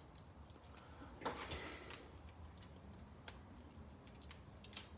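Faint rustling and a few light clicks from hands handling the patch-repair materials, with a short rustle about a second in.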